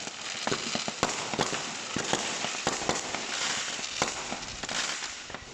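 New Year fireworks going off: a continuous crackling with many sharp bangs and cracks in quick succession.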